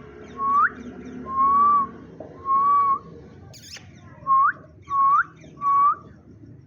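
Indian ringneck parrot whistling six clear notes. Some notes are held level and others end in a sharp upward flick. There is a single click midway.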